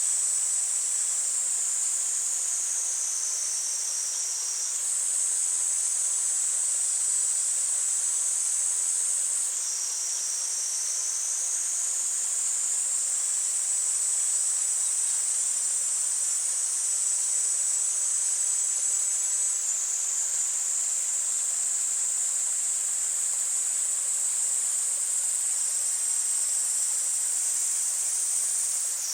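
A chorus of cicadas droning steadily in a high, shrill band, with a faint rush of stream water beneath. The drone jumps abruptly in pitch and loudness several times.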